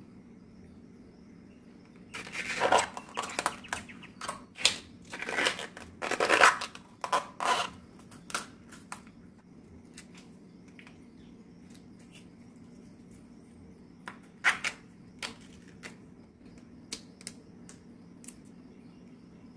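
Banana-flower bracts being peeled and torn off by hand: several seconds of crisp crackling, tearing bursts, then a few scattered snaps and faint ticks.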